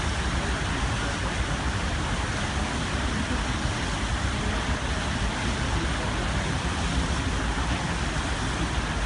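Steady rushing noise of a boat under way, heard from its open deck: wind buffeting the microphone and water rushing past the hull, with a low rumble underneath.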